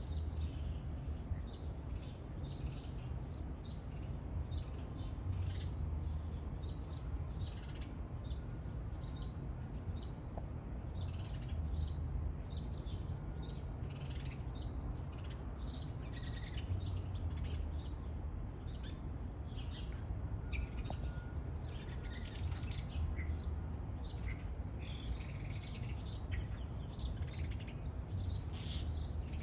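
Songbirds chirping in many short, high calls, with a steady low rumble underneath.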